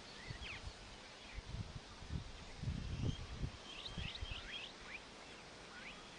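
Outdoor ambience of small birds chirping in short, quick notes, with a little flurry of chirps about four seconds in. Under it run low, irregular thumps and rumbling.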